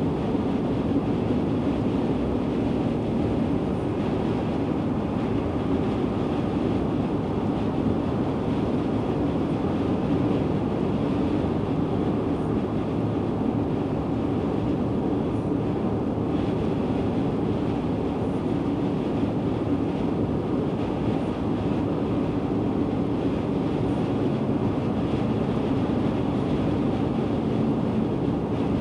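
Steady road noise inside a car's cabin at highway speed, tyres and engine giving an even, low rumble.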